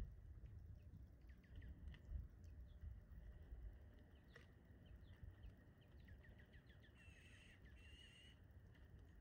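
Faint chirping of small songbirds: many short, quick falling notes scattered through, with two harsh, buzzy calls of about half a second each near the end, over a low outdoor rumble.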